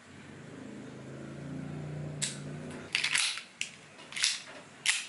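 A gas blowback airsoft pistol being charged from a green gas can with a low buzzing hiss that swells for about two seconds. Then comes a sharp click, followed by a string of snappy shots as the pistol fires.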